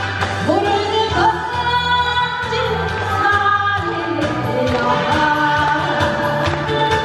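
A woman singing into a microphone through a PA, with vibrato, over an amplified musical backing with a steady bass line and beat.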